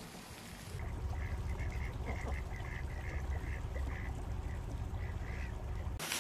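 White domestic ducks quacking: a run of short quacks, about three a second, starting about a second in, over a steady low rumble.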